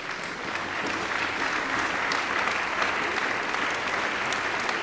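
A crowd applauding: dense clapping that builds up over about the first second, then holds steady.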